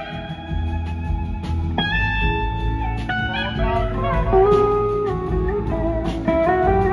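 Live rock band playing, led by an electric slide guitar whose sustained notes glide up and down between held pitches, over bass and drums.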